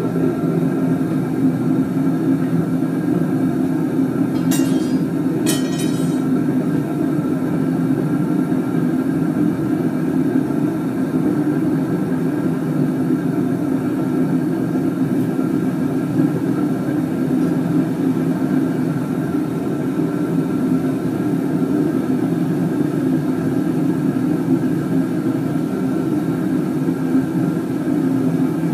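Gas burner firing steadily into a homemade gas-cylinder furnace: a continuous low rumble. Two short clicks come about four and a half and five and a half seconds in.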